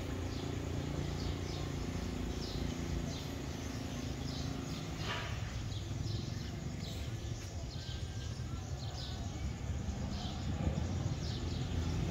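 Small birds chirping over and over in short, high, falling chirps, over a steady low background rumble.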